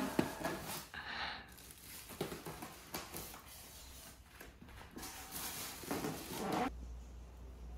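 Polystyrene foam packing blocks scraping and rubbing against each other as they are pulled apart and lifted off, in two bouts of rustling, scraping noise that cut off suddenly near the end.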